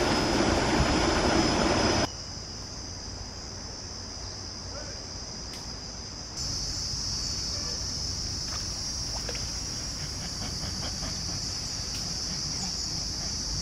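Insects chirring steadily at a high pitch, growing louder about six seconds in. A louder rushing noise fills the first two seconds and cuts off abruptly.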